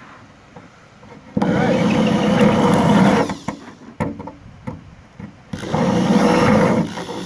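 Power drill driving a spot weld cutter into sheet-metal body panel, run in two bursts with a steady motor whine under load. The spot weld was not center punched, so the cutter is being started by eye.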